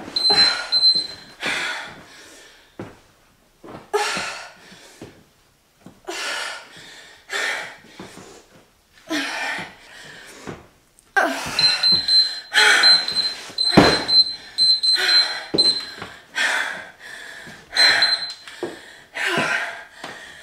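Interval timer beeping: one short beep near the start, a long run of short beeps about halfway through, and one more near the end, over hard, forceful breathing that comes every second or so from intense exercise. A deep thud lands in the middle of the run of beeps.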